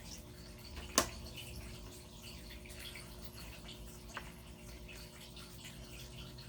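Tarot cards being handled: a sharp tap about a second in and a fainter one around four seconds, over low room hiss.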